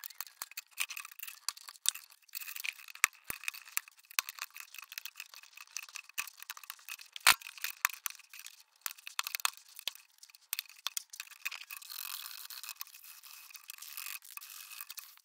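Hand tools (blade, chisel and flat file) scraping and filing a hard plastic grille frame, trimming off leftover mounting nubs: rapid scratchy strokes with small clicks and one sharper click about halfway through. Near the end the strokes turn into a steadier rasp of a file.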